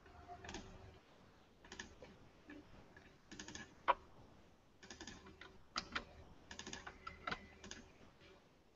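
Computer keyboard typing, faint, in short clusters of keystrokes with pauses between them.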